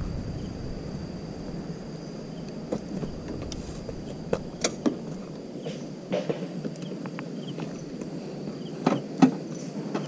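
Footsteps on gravel and scattered clicks and knocks of a rider handling and climbing onto a parked motorcycle whose engine is off.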